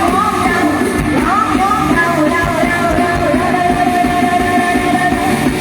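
Live band music played loud: a singer's melodic line bends and then holds one long note over a steady beat.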